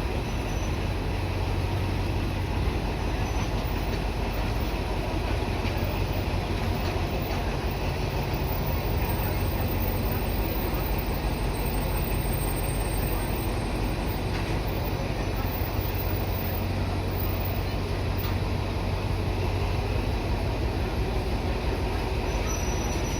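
Passenger train running steadily, a continuous rumble with a low hum and no break.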